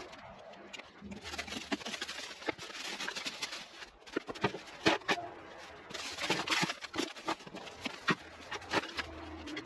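Weeds and vines being pulled up and crammed into a bin by hand: a rustling and crackling of leaves and stems, broken by scattered sharp snaps and knocks, the loudest about halfway through.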